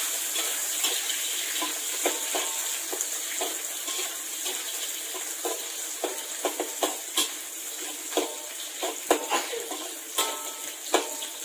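Sliced red onions sizzling in hot oil in an aluminium wok, stirred with a metal ladle that knocks and scrapes against the wok in irregular clinks. The clinks come more often in the second half.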